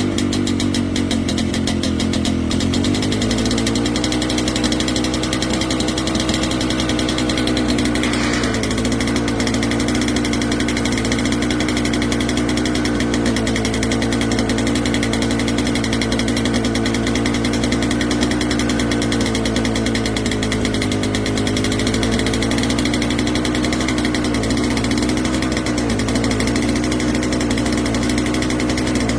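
Vintage tractor engine running at a steady speed, its note shifting slightly about two and a half seconds in.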